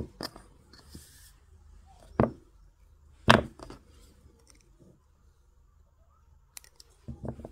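Handling of wire-wrapping tools and copper wire: a few sharp, separate clicks and taps with quiet between, the loudest a little over three seconds in.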